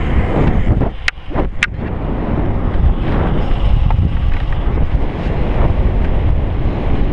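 Wind buffeting a GoPro's microphone on a downhill mountain bike ride, a loud, steady low rumble. Two sharp clicks sound about a second in.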